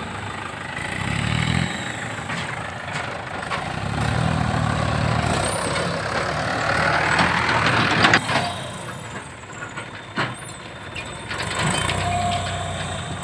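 Mahindra tractor diesel engines running, the revs surging up and down several times as the tractor pulls away and works. A sharp knock stands out about eight seconds in, with a smaller one about two seconds later.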